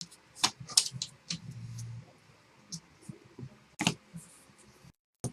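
Trading cards and their packaging being handled: a few sharp snaps and clicks with light rustling, the loudest snap about four seconds in.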